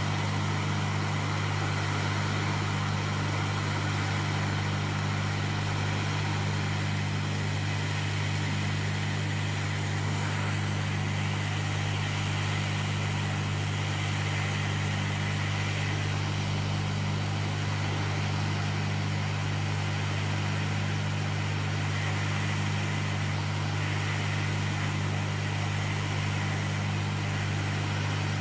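Hot-air rework station blowing a steady stream of air, reflowing solder paste to solder a capacitor onto its pads, over a steady low electrical hum.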